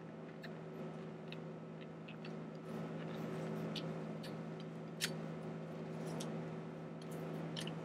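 Scattered light metallic clicks and taps as a refrigerant flaring tool's bar and clamp are handled and a copper tube is fitted into it, with a sharper click about five seconds in. Under them runs a steady low hum.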